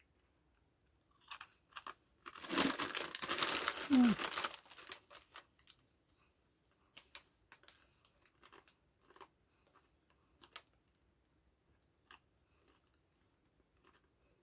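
Foil-lined crisp packet crinkling loudly as it is picked up and handled, for about three seconds, then scattered light crinkles and crunches.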